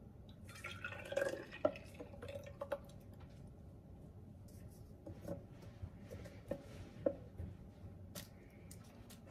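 A thick pink blended milk drink poured from a blender jug into a glass carafe, gurgling most strongly in the first couple of seconds. Then a scatter of short, light clinks and taps as the glass carafes are handled and stoppered with cork lids.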